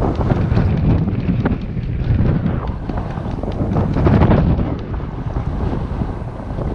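Wind buffeting the camera's microphone: a loud, gusty rumble with crackles that swells about four seconds in.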